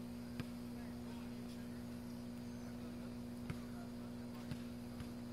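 A basketball knocking on a paved street a few times at irregular intervals, over a steady low hum, with faint distant voices.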